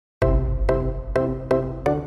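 Background music with a steady beat of repeated chords, about two a second, starting just after the beginning.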